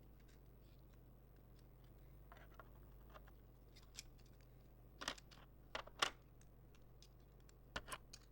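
Faint, scattered clicks and taps of laptop parts being handled, with a few sharper clicks about five to six seconds in and again near the end, over a faint steady electrical hum.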